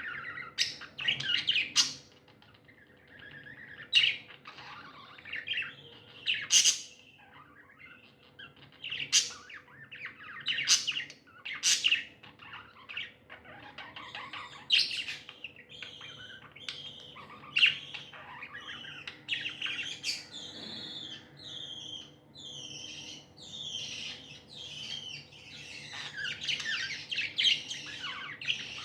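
Pet budgies chirping and chattering, a flurry of sharp, irregular chirps that thickens into continuous chatter near the end.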